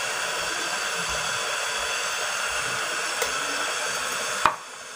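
Steady hissing from the pot of goat meat and masala cooking on the gas stove, cut off suddenly with a click about four and a half seconds in.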